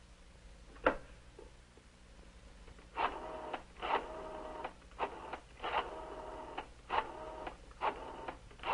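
Rotary dial of a wall telephone being dialled: a run of whirring, clicking strokes about one a second, one for each digit, beginning about three seconds in. A single click comes about a second in.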